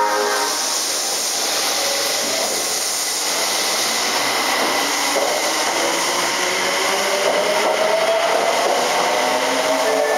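Osaka Municipal Subway 30000 series electric train pulling away from an underground platform. A steady hiss of air and wheel noise runs throughout, and from about halfway through the traction motors' whine slowly rises in pitch as the train picks up speed.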